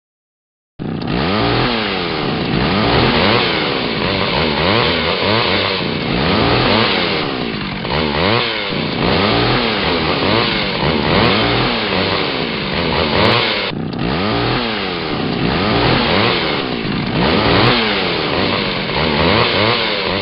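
Two-stroke chainsaw engine running loud, its pitch rising and falling over and over as it revs up and down. It cuts in suddenly about a second in and drops out for a moment midway.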